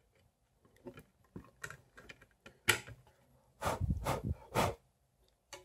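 A floodlight's white plastic reflector panel being handled and fitted against the metal housing: scattered light clicks, a louder knock a little under three seconds in, and a short run of knocks about a second later.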